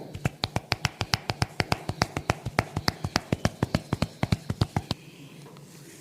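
Rapid percussive massage tapping on a head, about six sharp, even strikes a second for some five seconds, then stopping abruptly.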